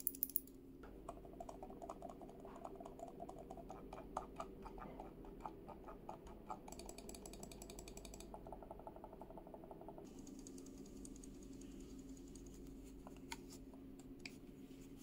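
Faint, muted clicking of the INPHIC M8P wireless mouse's silent microswitches as its buttons are pressed over and over in quick succession, with a short run of faster ticking a little past the middle. The clicks thin out to a few isolated ones near the end.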